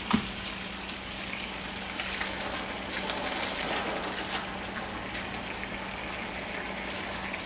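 Chicken frying in a cast-iron skillet, a steady sizzle, while aluminium foil is crinkled and pressed down over the pan. There is a sharp knock just after the start and brief crackles of foil a few times.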